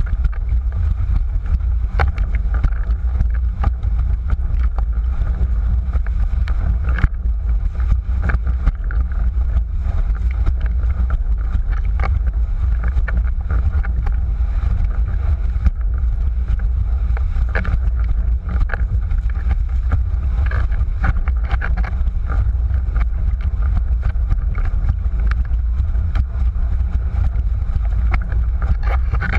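Windsurf board planing fast over choppy sea: a steady heavy rumble of wind buffeting the microphone over rushing, hissing water, with scattered short knocks and slaps as the board hits the chop.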